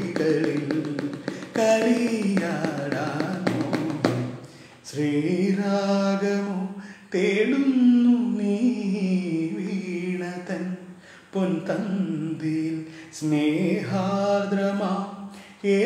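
A man singing a Malayalam film melody in long held, wavering notes with short pauses for breath, keeping time by tapping his fingers on a plastic lunch box. The taps are clearest in the first few seconds and again near the end.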